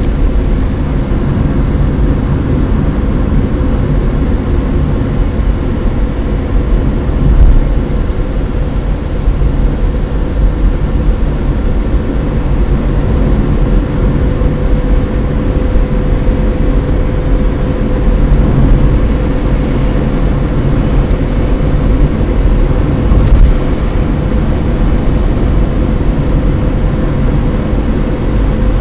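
Car driving at speed on an expressway, heard from inside the cabin: a steady low rumble of tyres and engine with a faint steady hum over it. Two brief thumps come about 7 seconds and 23 seconds in.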